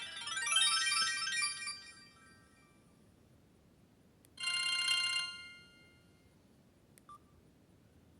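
Samsung C3011 mobile phone's built-in tones playing through its small loudspeaker. A quick high electronic melody fades out about two seconds in. About four seconds in comes a short bright chime, and near the end a faint click.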